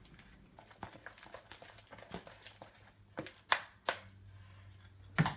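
A plastic spatula stirring thick, clumping slime in a glass mixing bowl: irregular soft clicks, taps and sticky squishes, with a few louder clacks against the bowl from about three seconds in.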